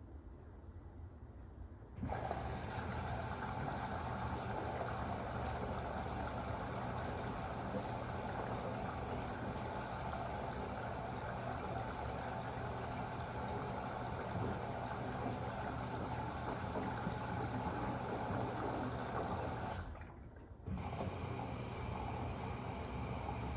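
Samsung WW25B6900AW front-load washer making a loud, steady buzzing noise that starts suddenly about two seconds in, drops out for a moment near the end and starts again. The owner says this loud buzz comes when the washer drains with no water left to drain, and it has done so since the machine's first month.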